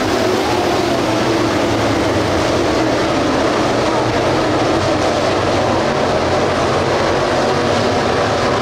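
A field of dirt late model race cars with GM 602 crate V8 engines running together at speed around a dirt oval: a loud, steady, blended engine drone with no single car standing out.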